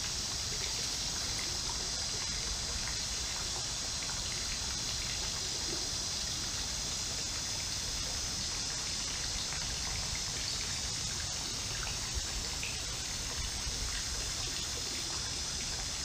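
Creek water trickling and running steadily, an even hiss with a few faint clicks near the end.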